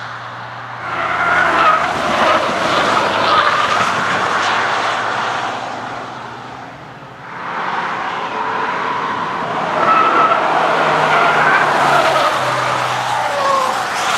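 Camouflaged Land Rover Freelander prototype driving past at speed on a race track, its engine running hard and its tyres loud through the corners. The sound swells about a second in, fades around the middle, then builds again as a second pass comes through.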